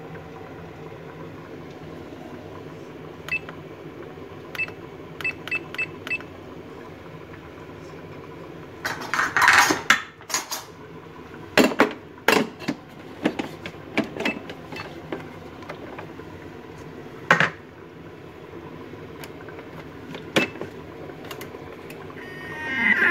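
A Thermomix's lid clatters and knocks as it is fitted and locked onto the stainless-steel mixing bowl, after a quick run of short beeps. Just before the end, the motor starts up and spins the blades to chop a whole onion.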